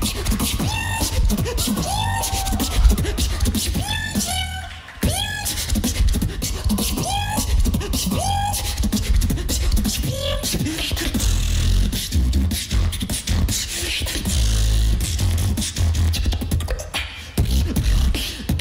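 Competition beatboxing into a handheld microphone: a dense beat of deep bass, sharp clicks and snare-like hits, and short sliding pitched sounds. About five seconds in the beat briefly drops out, then comes back in hard.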